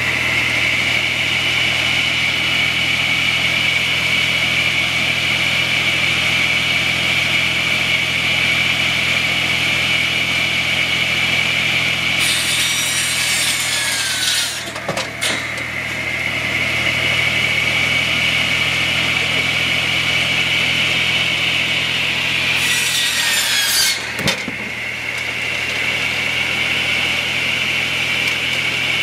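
PTO-driven circular saw spinning with a steady high whine over the tractor's idling three-cylinder Mitsubishi K3B diesel. Twice, about 12 and 23 seconds in, the blade cuts through a log for a second or two with a harsh rasp, and each cut is followed by sharp knocks.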